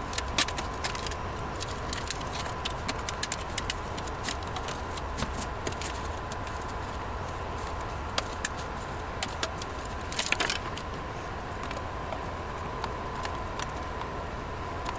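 Scattered light clicks and small rattles of computer hardware being handled on the bench, with a louder rattle about ten seconds in, over a faint steady hum and thin tone.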